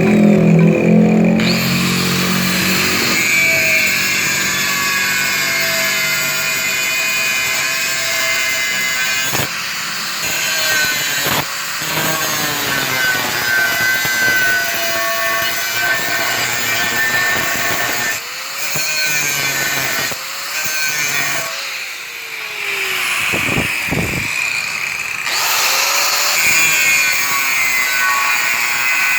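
A power tool running with a whine that dips and rises in pitch as its load changes, broken by several abrupt cuts.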